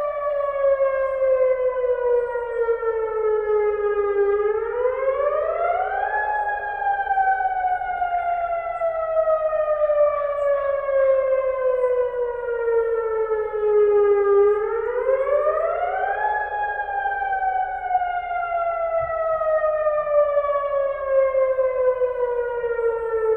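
Tsunami warning siren of the All-Hazard Alert Broadcast (AHAB) system sounding a wail in a test. The pitch climbs over about two seconds, then sinks slowly for about eight seconds; the climb comes twice.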